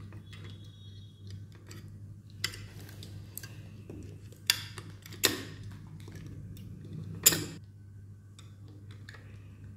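Sharp metallic clicks and taps from the platter clamp and aluminium platter of an opened hard disk drive being handled: a couple of light clicks, then three louder ones from about halfway through, over a steady low hum.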